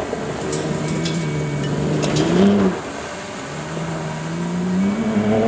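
2025 Ram 1500 RHO's 3.0-litre twin-turbo Hurricane straight-six pulling hard on a dirt track: the engine note climbs, drops suddenly a little under three seconds in as the throttle comes off or a gear changes, then climbs again. A few sharp ticks of loose gravel sound in the first couple of seconds.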